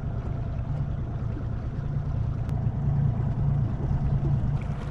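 Boat's outboard motor running steadily at trolling speed, a low even engine hum.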